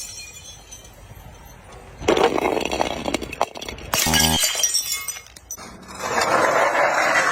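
Glass bottles being crushed and breaking, in three loud bouts of crunching, cracking and shattering glass: the first about two seconds in, a sharp break at about four seconds, and a longer crunch building near the end. A short pitched electronic tone sounds with the break at four seconds.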